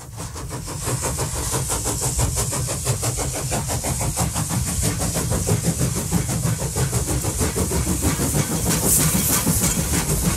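Steam-train chuffing: a rapid, even beat of chuffs over a low rumble and a steady hiss. It fades in at the start, then runs steadily.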